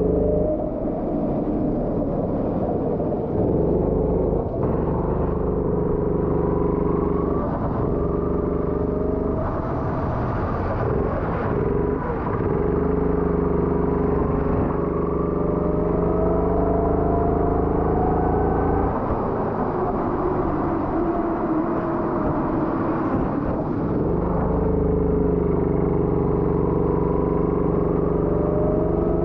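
Go-kart engine heard from the driver's seat, its pitch climbing as it accelerates and falling back again several times as the kart laps the wet track.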